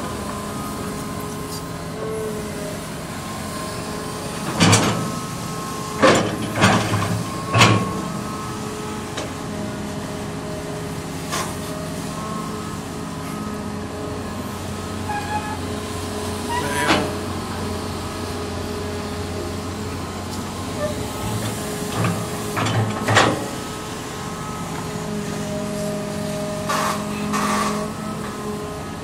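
Hitachi Zaxis 200-1 hydraulic excavator's diesel engine and hydraulics running steadily under digging load, a constant drone with a humming whine. Several sharp clanks and knocks stand out, a cluster about five to eight seconds in and more around the middle and later on, as the bucket works the soil.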